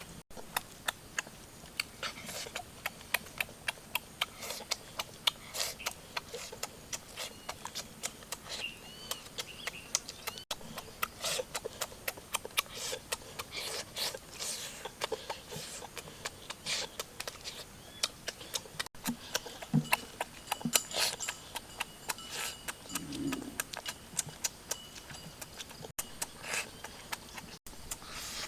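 Close-up eating sounds: a person chewing and smacking food, making irregular sharp clicks several times a second, with a few duller thuds.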